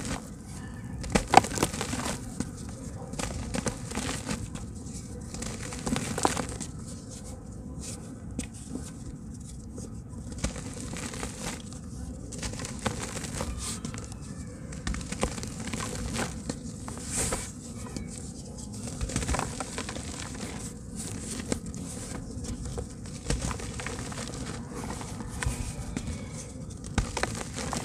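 Hands crushing and crumbling soft, water-soaked slabs of red dirt in a basin of water: irregular wet crunching and squishing with crackles. The sharpest, loudest crack comes about a second in.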